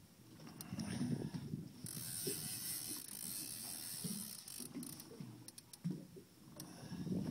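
Conventional saltwater fishing reel being cranked by hand, its gears grinding in irregular spurts as line is wound in.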